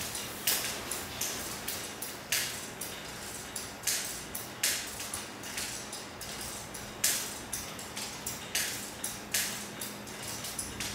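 Electronic noise music played through the speakers: short bursts of bright hiss, each starting sharply and dying away within half a second, come at irregular intervals about once a second over a steady low hum.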